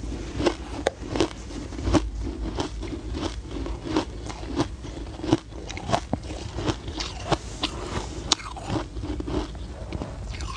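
Soft shaved ice being chewed close to a lapel microphone: a steady run of crisp crunches, about three a second.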